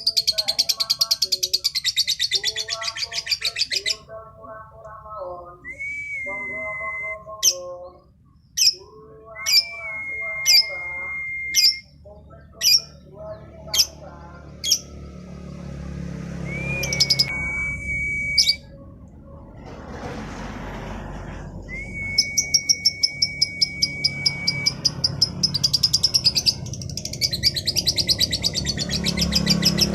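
Female lovebird singing: a long, fast, high trill that breaks off after about four seconds and starts again after about 22 seconds. In between come short whistles that rise and then hold one steady note, some sharp chips, and lower chattering calls.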